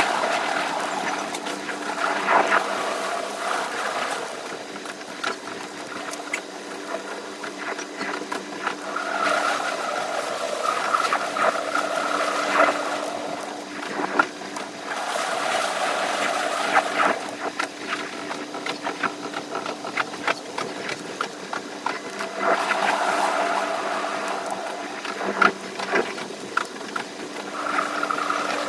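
JR West 283 series limited express train running, sped up: a steady mechanical hum with swelling whine and a rapid clatter of clicks from the wheels over the rails.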